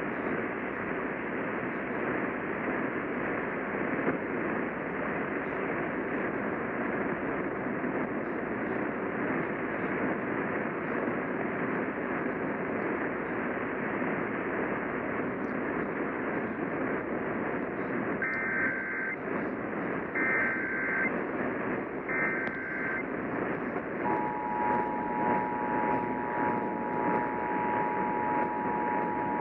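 Steady hiss of AM radio reception. About two-thirds of the way in come three short warbling Emergency Alert System SAME header data bursts. Then the EAS attention signal begins: a steady 853 + 960 Hz two-tone, heralding an alert test.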